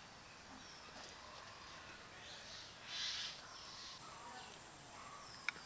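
Quiet outdoor background with a faint hiss. A soft swish comes about three seconds in, and a high steady insect buzz comes in about four seconds in. A couple of small sharp clicks follow near the end.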